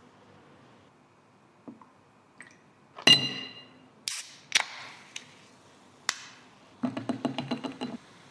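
Cafe work handling sounds: a hard item set down with a loud ringing clink about three seconds in, then a few sharp clicks and knocks, and near the end a quick rattling clatter of about ten strikes in just over a second.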